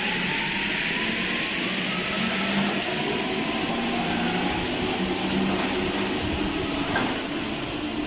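Paris Métro MP14 rubber-tyred train pulling away along the platform into the tunnel, with a steady loud rolling rumble. Its traction-motor whine rises in pitch through the first couple of seconds as it gathers speed.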